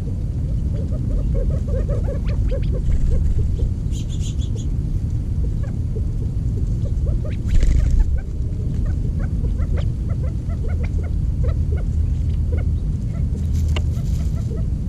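Birds feeding on the ground: many small ticks and taps, with a few brief high chirps, over a constant low rumble on the microphone.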